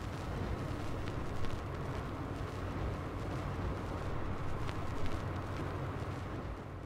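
Car driving: a steady low road-and-engine rumble with hiss and a few faint ticks, easing off slightly near the end.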